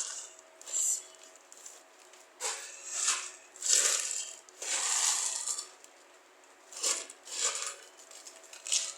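Plastic packaging rustling and crinkling as it is handled, in a string of short bursts of a second or less.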